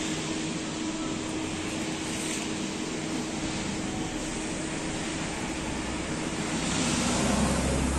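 Steady hiss and hum of a running machine, like a fan, with a lower rumble swelling near the end.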